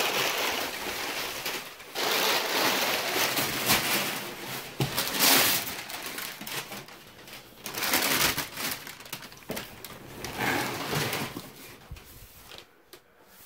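Crumpled brown kraft packing paper rustling and crinkling in irregular bursts as it is pulled out of a cardboard shipping box.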